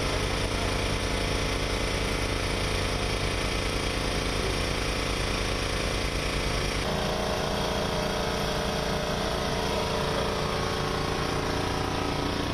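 Boat engine running steadily, heard from on board, with a rapid even beat. Its tone shifts slightly about seven seconds in.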